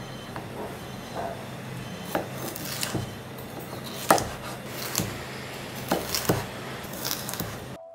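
Kitchen knife slicing bell peppers into strips on a wooden cutting board: about seven sharp knocks of the blade hitting the board, spaced roughly a second apart, the loudest about four seconds in.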